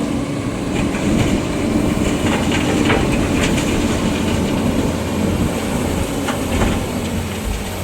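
Heavy diesel machinery from excavator-and-dumper soil loading, running steadily, with scattered metallic clanks and knocks.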